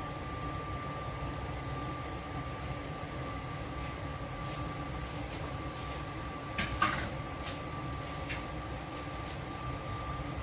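Light clicks and a short clatter of cookware about two-thirds of the way in, with a few more single clicks, over a steady background hum with a faint high whine.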